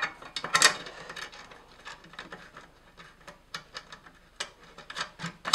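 Irregular light clicks and taps of small hardware and 3D-printed brackets being fitted by hand to an electric radiator fan.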